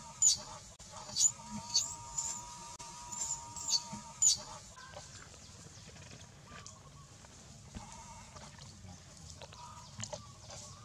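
Long-tailed macaque cries: a wavering, bleat-like wail with sharp high squeals that fall in pitch, about two a second, over the first four seconds. Then it goes quiet apart from faint scattered sounds.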